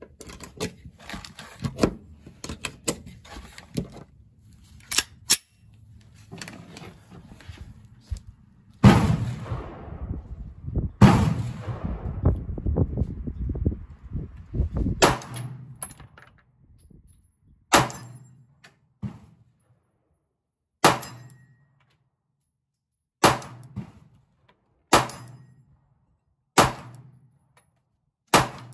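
Glock 43X 9mm pistol firing slow single shots, about seven a couple of seconds apart in the second half, each a sharp crack with a short echoing tail. Before the shots: light clicks and knocks, and two heavier booms with long rumbling tails.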